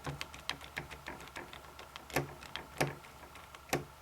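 Screwdriver working screws out of a V3 airsoft gearbox shell: a run of light, irregular clicks and ticks, with a few louder clicks near the middle and near the end.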